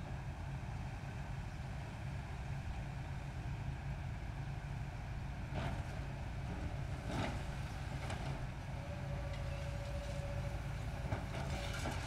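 Tracked demolition excavator's diesel engine running steadily, with two short crunches of brick and rubble from the grapple, about five and a half and seven seconds in. A brief steady whine sounds near the end.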